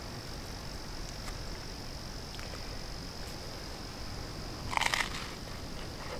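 A short crunch about five seconds in, a bite into a toasted bread roll, over a steady high trill of insects.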